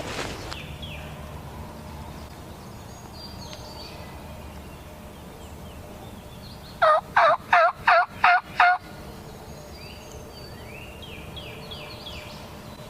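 A run of six loud, evenly spaced turkey yelps about two-thirds of the way in, lasting about two seconds, each note breaking downward in pitch. Faint songbird chirps sound before and after.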